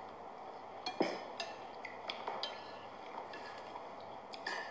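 A few scattered light clinks and taps of a spoon and hands against ceramic plates and bowls at a meal.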